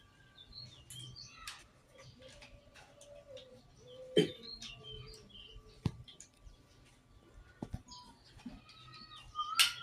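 Faint bird chirps, short and scattered, with a few sharp clicks or knocks between them.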